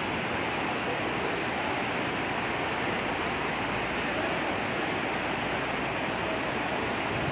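Floodwater of the swollen Swat River rushing past, a steady rush of fast muddy water.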